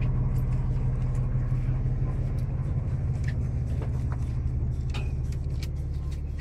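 Fishing boat's engine running steadily with a low hum, with a few faint clicks and knocks on deck.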